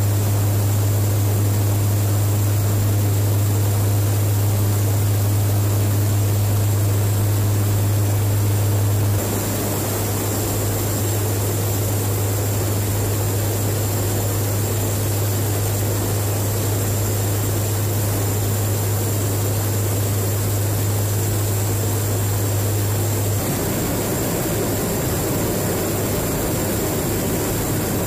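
Steady drone of a KC-130J tanker's turboprop engines and propellers heard from inside the cabin: a strong, deep hum over a wash of airflow hiss. The sound changes slightly twice, about nine and twenty-three seconds in.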